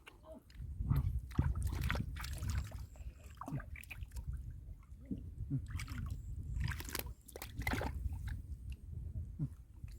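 Muddy water sloshing and splashing in irregular bursts, as hands grope through a mud-bottomed pool for fish.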